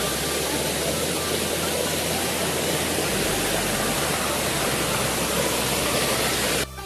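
Waterfall's water rushing in a steady, loud, even hiss. It cuts off suddenly near the end.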